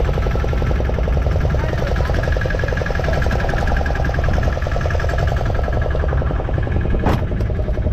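Small fishing boat's engine running steadily, a fast even throb over the wash of the sea. A single sharp knock comes about seven seconds in.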